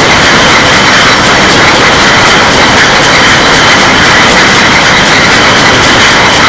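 Beer bottling line running: a loud, steady machine noise with a fast, even rattle of glass bottles on the conveyor and a steady whine from the filling machinery.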